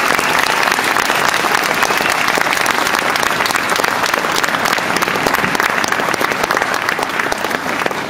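Audience applauding: dense, sustained clapping that begins to die down near the end.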